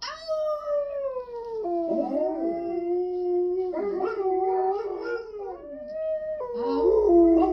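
Bulldog howling in long, drawn-out howls that slide slowly down in pitch, one after another, with a second howling voice overlapping at times.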